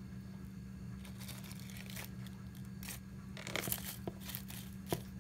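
Scattered rustling and crackling of dry leaf litter and moss being moved about, starting about a second in, with a sharper crack near the end, over a steady low hum.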